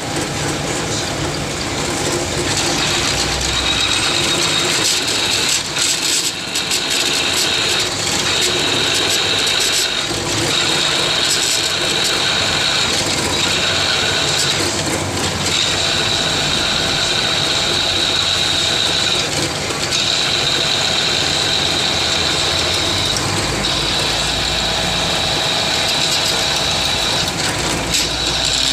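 Power drill with a 5/8-inch bit boring into a 6-inch metal flange. The motor runs steadily, and a high-pitched squeal of the bit cutting comes and goes in stretches of a few seconds.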